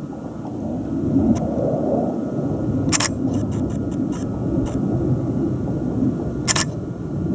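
Distant jet-aircraft rumble, low and wavering. A sharp click from handling the camera comes about three seconds in, then a run of softer ticks, then another sharp click near the end.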